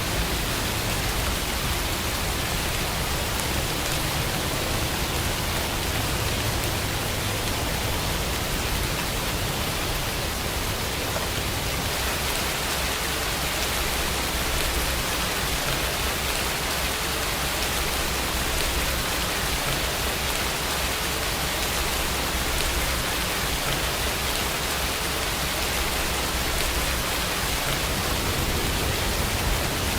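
Steady, even rain sound with no single drops standing out: a rain recording used as the carrier track of a subliminal audio.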